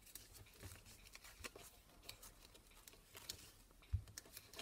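Faint rustling and light ticks of folded origami paper units being handled, with a soft low bump about four seconds in.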